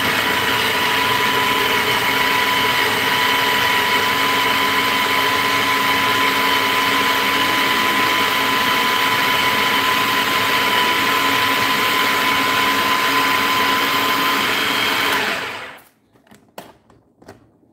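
Cuisinart food processor running on high, its blade chopping a coarse smoked herring and vegetable mix, with a steady motor whine. It switches off about fifteen seconds in and quickly winds down.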